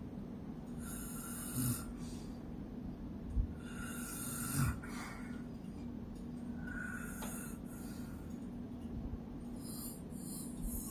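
A woman snoring in her sleep, a continuous low rattle that sounds like a woodpecker, with a hissing breath about every three seconds.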